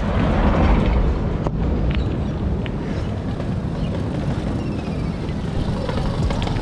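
Wind buffeting the microphone of a camera on a moving mountain bike: a loud, unsteady low rumble.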